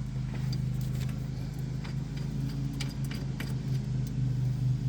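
A steady low mechanical hum from a motor running nearby, with a few light metal clinks of a pulley, bolt and nut being handled, most of them past the middle.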